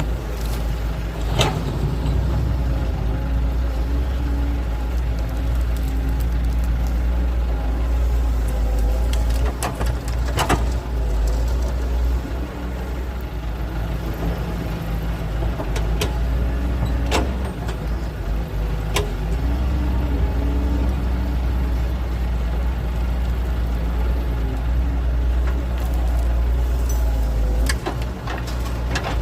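Heavy diesel engine of an excavator digging soil, running steadily with its pitch shifting as it works. A handful of sharp knocks are spread through it, about a second in, around halfway, and near the end.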